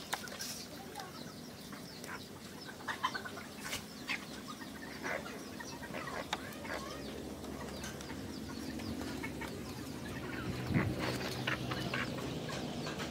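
Chickens clucking on and off, with scattered sharp small clicks and knocks.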